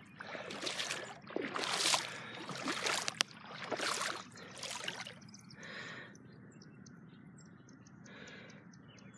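Legs wading through knee-deep floodwater, a splash and slosh with each stride, about one a second; after about five seconds the splashing drops to faint sloshing.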